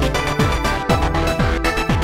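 Electronic background music with a steady, fast beat: a deep kick drum about twice a second under sustained synth notes.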